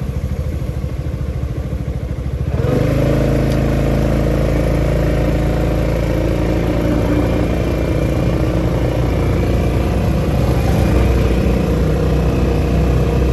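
Motorcycle engine idling, then about two and a half seconds in it opens up and runs steadily as the bike rides off.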